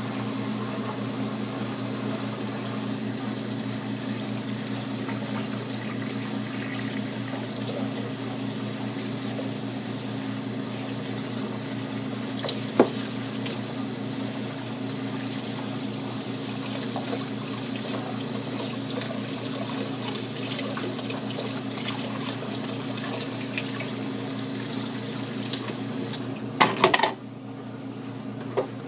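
Water running steadily from a tap into a sink while hands are washed. About 26 seconds in, the water is shut off with a few sharp knocks, leaving a quieter steady low hum.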